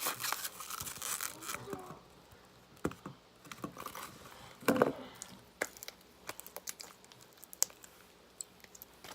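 Crinkling and scraping handling noises for the first two seconds, then scattered light clicks and one louder knock about five seconds in.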